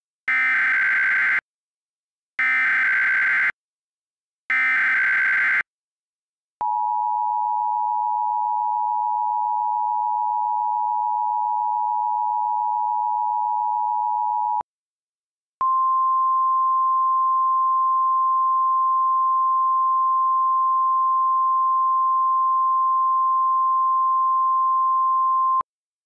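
Emergency alert broadcast tones. First come three short bursts of warbling digital header data, each about a second long. Then the two-tone attention signal sounds steadily for about eight seconds. After a brief pause, a single slightly higher steady tone holds for about ten seconds.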